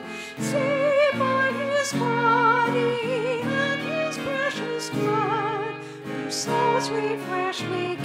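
An offertory hymn: a single voice singing with vibrato over instrumental accompaniment, the chords changing every second or so.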